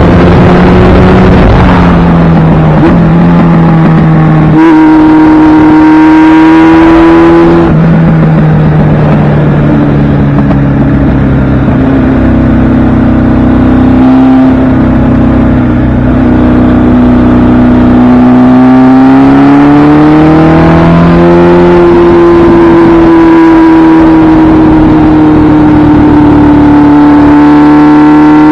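1976 Kawasaki KZ's air-cooled inline-four engine pulling on the road, its note rising and falling with throttle and gear changes: a drop about two seconds in, a jump about five seconds in, a fall near eight seconds, then a long climb around twenty seconds before it holds steady. Wind rush on the camera runs under the engine.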